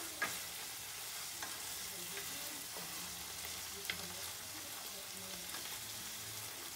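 Ground beef and onions sizzling as they brown in a skillet, stirred and broken up with a wooden spatula, with two sharp knocks of the spatula against the pan, about a quarter second and about four seconds in.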